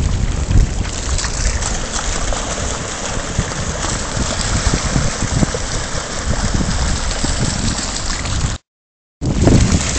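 A pack of dogs splashing and running through shallow sea water, with wind buffeting the phone's microphone. The sound cuts out completely for about half a second near the end.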